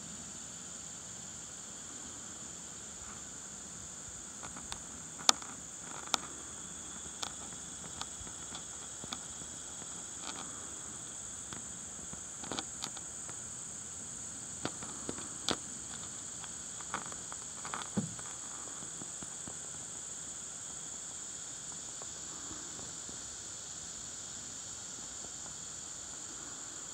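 A steady high-pitched hiss with a continuous insect-like whine, with scattered light clicks and taps through the middle of the stretch; the loudest click comes about five seconds in.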